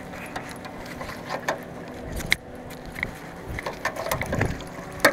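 Scattered knocks, clicks and rattles of fishing gear being handled in a small boat while a hooked fish is brought alongside, over a faint steady hum. There is one sharp click about two seconds in, a dull thud near the end and another sharp click right at the end.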